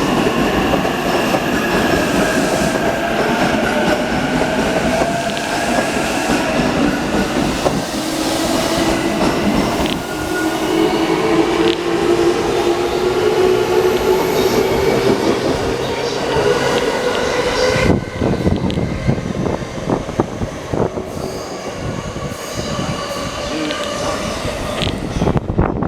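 JR East E233/E231 series electric train pulling out and accelerating, its traction motors whining in several tones that slowly rise in pitch. In the second half the whine gives way to a run of wheel clacks over the rail joints.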